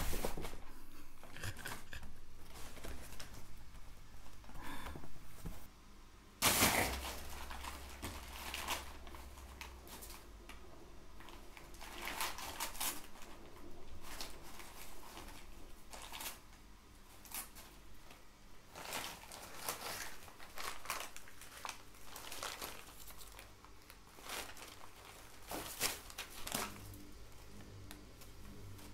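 Crumpled brown packing paper and bubble wrap crinkling and rustling in a cardboard box as a cat burrows and plays in it, with irregular scrapes and bumps against the cardboard. A sudden loud knock comes about six and a half seconds in.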